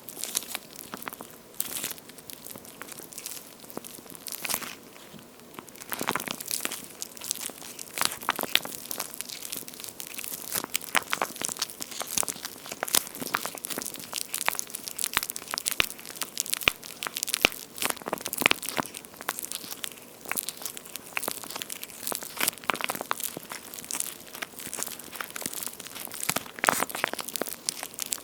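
Hands squeezing and kneading a water-feel squishy toy shaped like a two-layer slice of charcoal-grilled toast, giving a dense, irregular run of small sharp crackles.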